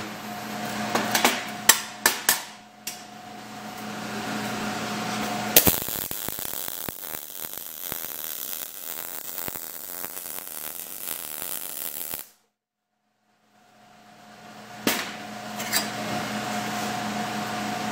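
MIG welder arc crackling on galvanized 14-gauge sheet steel, .030 ER70S-6 wire under C-25 gas. The crackle starts suddenly about five and a half seconds in, runs evenly for nearly seven seconds and cuts off abruptly. Before it there are a few sharp knocks, over a steady hum.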